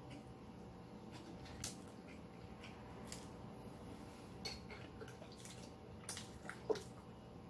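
Faint eating sounds: chewing with a few light clicks and taps of tableware, the sharpest one near the end.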